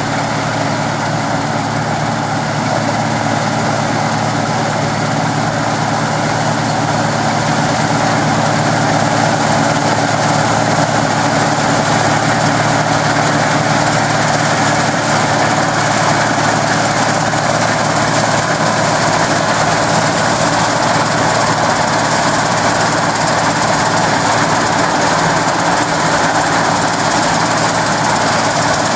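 Claas Dominator 106 combine harvester running steadily, its diesel engine and machinery making a continuous loud drone. It grows a little louder over the first few seconds, then holds steady.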